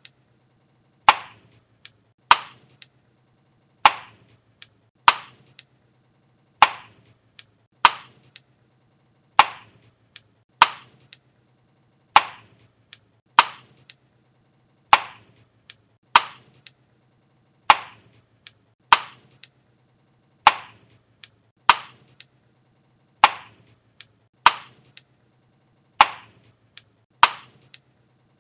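Gum being chewed with the mouth open: sharp, wet smacks at a steady pace, roughly one every second and a bit, some followed by a fainter smack.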